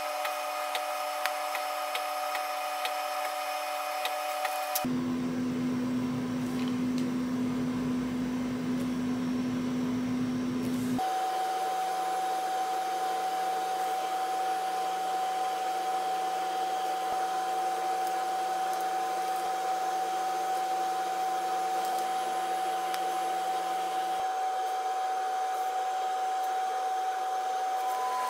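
Steady whirring hum of an electric motor or fan. It changes abruptly to a different steady tone about five, eleven and twenty-four seconds in.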